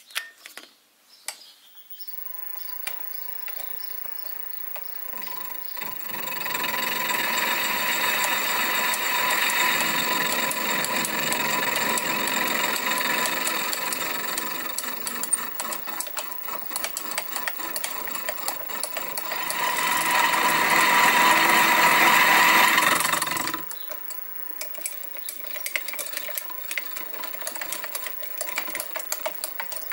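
Sieg SX2P mini mill with an end mill cutting across the port face of a Stuart S50 cylinder casting: a steady machining whine with a constant tone that builds over the first few seconds and stays loud until it drops suddenly about 23 seconds in. After that, a quieter run with rapid ticking.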